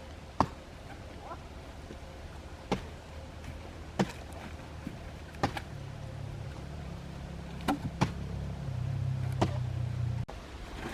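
Sharp knocks at irregular intervals, one to two seconds apart, over a low motor drone. The drone grows louder through the second half and stops abruptly shortly before the end.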